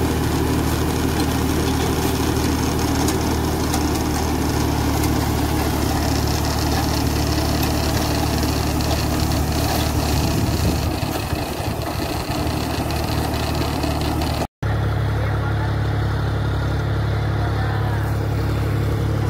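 John Deere 5310 tractor's three-cylinder diesel engine running steadily under load, driving a PTO rotavator that churns through banana stems and soil. The sound dips slightly about two thirds of the way through, breaks off for an instant, then carries on just as steady.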